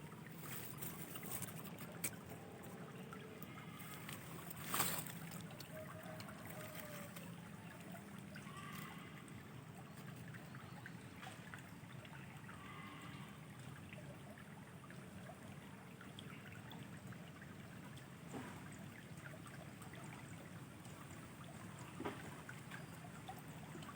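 Faint water trickling by the fishing spot, with a few scattered sharp clicks, the loudest about five seconds in.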